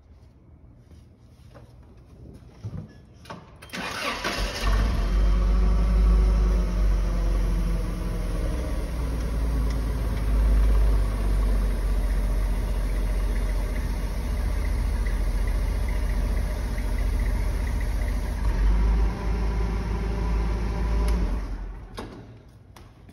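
Forklift starting up about four seconds in and running steadily under load as it raises one side of a vehicle, then shutting off shortly before the end.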